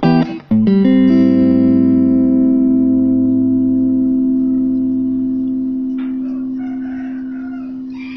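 Stratocaster-style electric guitar on a clean tone: a couple of short chord stabs, then one chord strummed under a second in and left to ring, fading slowly. A faint click about six seconds in.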